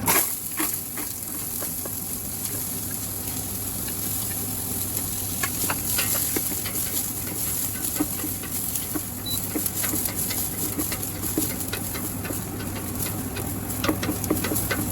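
Onions sizzling in hot oil in a pot, the hiss starting abruptly as they go in and running steadily with scattered crackles and pops.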